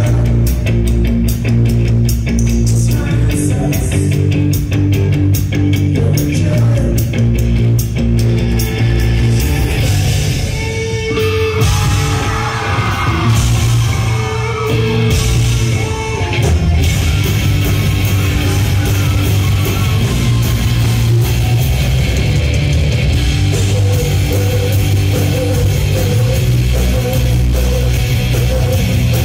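Live rock band playing loud through a concert-hall PA, drums and electric guitars. The drums beat steadily for the first third, a sung vocal line comes in around the middle, and held, distorted guitar chords carry the second half.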